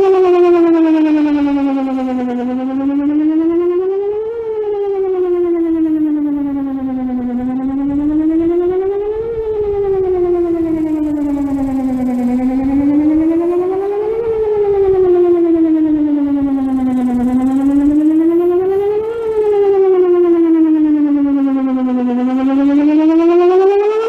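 Whelen 4008 electronic tornado siren sounding a wail tone during an outdoor warning system test. The loud tone rises and falls smoothly, repeating about every five seconds.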